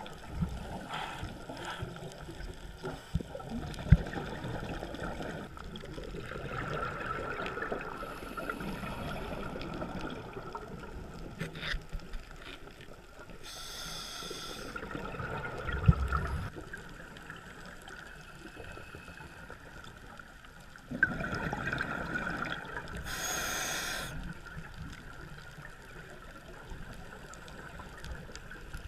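Underwater sound of scuba breathing: a steady gurgle of regulator bubbles, with a short hiss of breath twice, roughly ten seconds apart. Two sharp low thumps stand out, about four seconds in and again near the middle.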